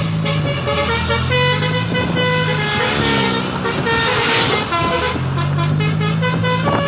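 Bus telolet horn of the basuri type playing a tune of several stepped horn notes, over the bus engine, which revs up twice.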